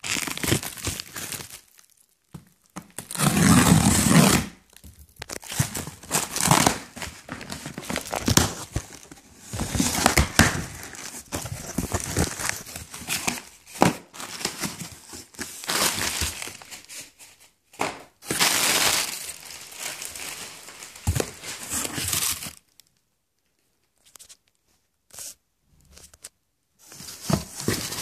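Packaging being unwrapped by hand: plastic wrap crinkling and tearing and cardboard box flaps being handled, in irregular bursts. It pauses for a few seconds near the end, then starts again.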